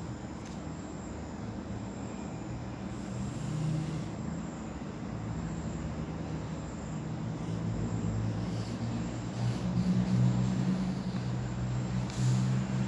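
A low, steady engine-like hum that grows louder in the second half.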